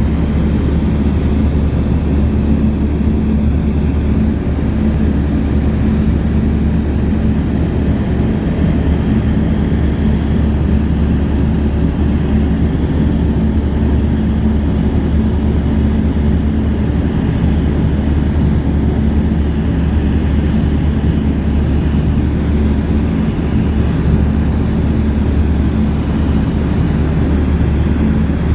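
Steady, unchanging drone of a light aircraft's piston engine and propeller, heard from inside the cabin.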